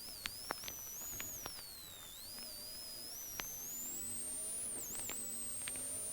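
Rally car's engine heard faintly and thinly through a GoPro with faulty audio. A high whistling tone glides up and down above a faint engine note that rises from about halfway in, with scattered sharp clicks.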